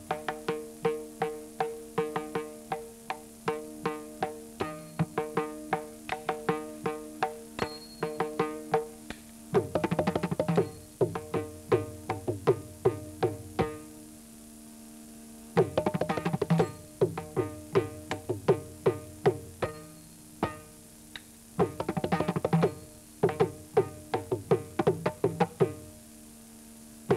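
Mridangam solo: quick patterns of crisp strokes that ring at the drum's tuned pitch. Three dense, faster flurries with deeper bass strokes come about ten, sixteen and twenty-two seconds in.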